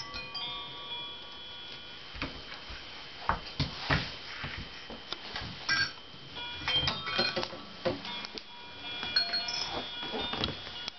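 Scattered clacks and knocks of hard plastic toys being handled and bumped on the floor, over a few held electronic toy chime tones.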